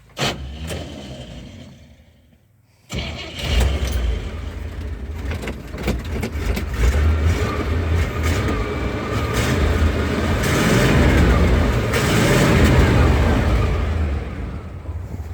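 1981 Chevy K10 pickup engine dying away to silence, then started again about three seconds in. It runs steadily, is revved up and held higher for a few seconds, then eases back down toward idle near the end.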